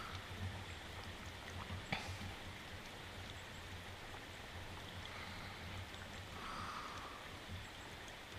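Steady rain, with a faint tick about two seconds in and a soft breath about six and a half seconds in, between snores.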